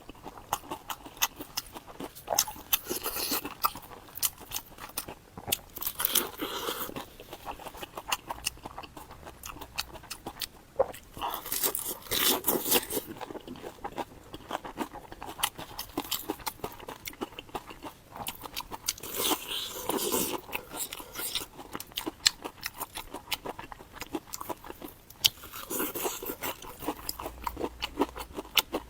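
Close-miked eating: crisp crunching bites and chewing, a dense run of sharp crunches with louder bursts every few seconds.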